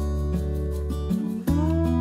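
Background music: acoustic guitar playing held chords, changing chord about one and a half seconds in.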